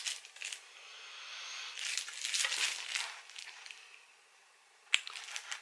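Clear plastic wrapper on a hard lolly crinkling and crackling as it is handled and pulled off, with a short quiet gap and a single click near the end.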